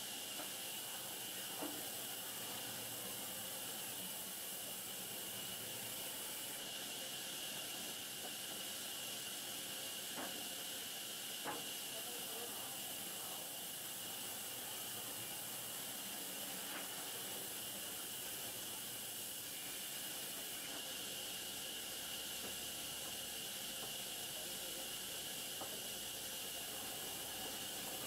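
Sawmill band saw running through wood: a steady high hiss, with a few sharp knocks as the planks are handled.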